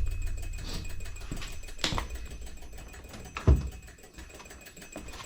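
Scattered clicks and knocks from hand work on a rear brake caliper and its parking-brake mechanism, with one heavier knock about three and a half seconds in, over a low steady hum.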